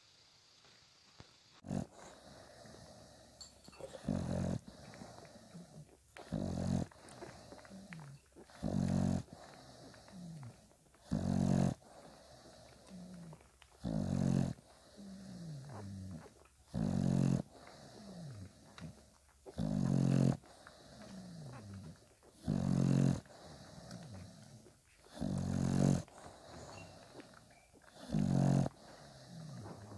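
English bulldog snoring: a loud pitched snore about every two and a half to three seconds, with softer falling squeaky sounds between the snores.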